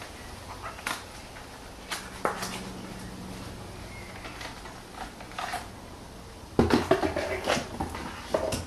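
Scattered plastic clicks and knocks of a car's rear wiper blade being unclipped and handled, with a quick run of louder rattling knocks about two-thirds of the way through.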